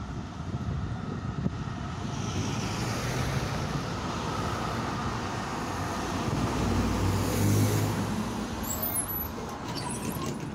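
Melbourne A-class tram running in along the track and slowing to a stop, its running noise and low motor hum loudest as it draws alongside about seven seconds in, with a few short high squeaks as it halts.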